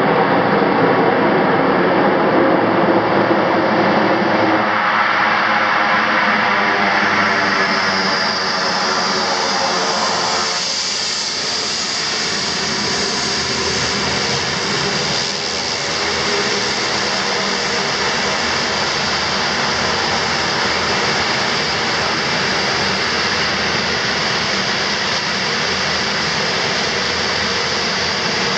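Twin turboprop engines of a Dornier 228 running loud as it rolls out up the runway after landing, loudest in the first few seconds. They then settle into a steady high-pitched turbine whine as the plane taxis onto the apron.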